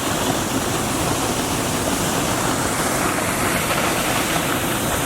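Triberg Falls, a cascading waterfall, rushing down its rocks: a steady, unbroken sound of falling water.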